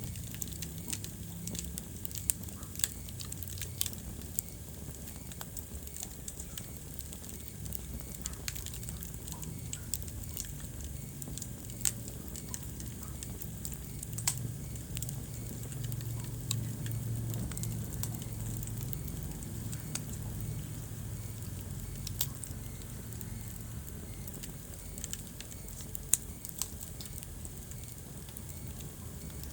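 Wood fire crackling in a fireplace: irregular sharp pops and snaps, a few of them much louder, over a steady low rumble.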